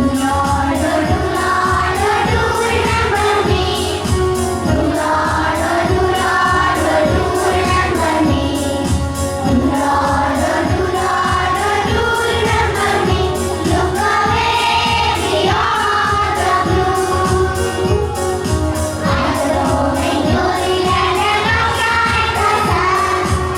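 Group of voices singing a prayer song over instrumental backing with a steady beat.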